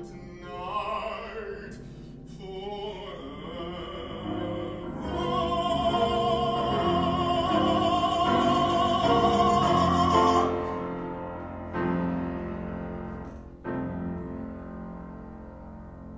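Classically trained male voice singing an art song with grand piano accompaniment. About halfway through he holds a long, loud high note with vibrato, which ends abruptly. The piano then plays the closing bars alone, fading away.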